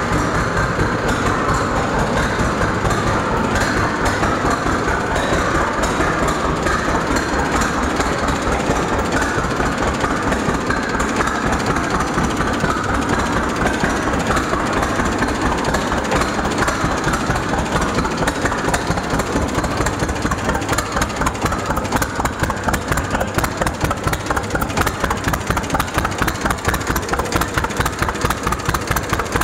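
1933 John Deere GPO tractor's two-cylinder engine running steadily with an even stream of exhaust beats. The beats stand out more clearly in the later part as it settles toward idle.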